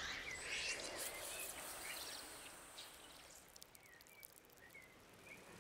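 Faint woodland stream ambience: a soft water hiss that fades away over the first couple of seconds, with a few short, high bird chirps.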